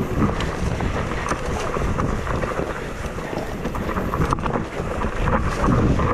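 Wind buffeting the camera microphone as a mountain bike descends a dirt trail at speed, with tyre noise and frequent small clicks and rattles from the bike over bumps.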